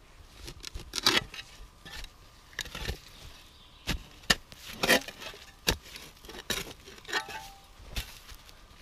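Steel spade stabbing and chopping into forest soil and tree roots: a series of sharp scraping strikes, roughly one a second and irregularly spaced.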